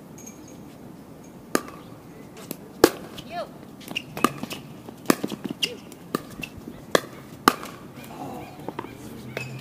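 A pickleball rally: paddles striking the plastic ball and the ball bouncing on the hard court, a series of sharp pocks every half second to a second, beginning about a second and a half in.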